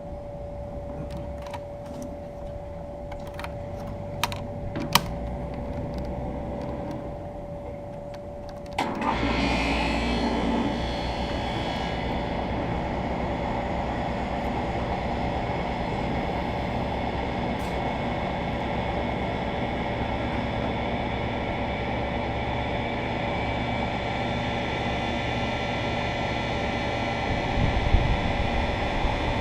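2001 York 2.5-ton central air conditioner's outdoor condenser unit starting up. After a few sharp clicks, the compressor and condenser fan come on suddenly about nine seconds in and run steadily, a hum with rushing air. There are a few low thumps near the end.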